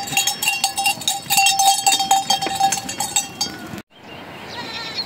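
Metal bells jangling and clanking rapidly, with a clear ringing note held in the middle, then cutting off suddenly about four seconds in.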